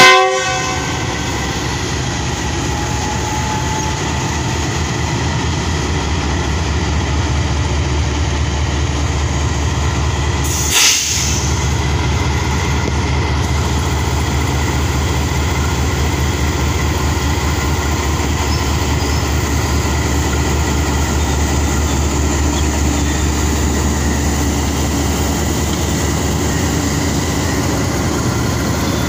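A GE U20C diesel-electric locomotive gives a short horn blast at the very start. Then its engine and the coaches it hauls rumble steadily as the train rolls past, with a brief hiss about eleven seconds in.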